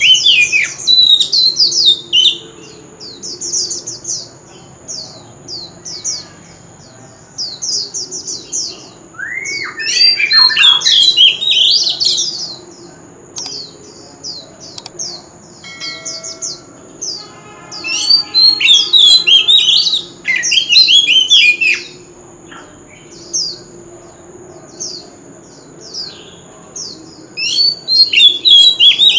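Oriental magpie-robin singing loudly: bursts of rapid, varied whistled phrases about four times, with short repeated high notes in between.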